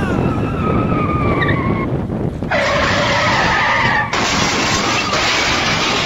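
Car tyres skidding and squealing over a steady rush of noise, the squeal loudest from about two and a half to four seconds in.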